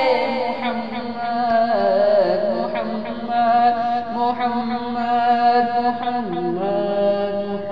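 A man singing a naat, drawing out a long vowel over several held notes that step from pitch to pitch.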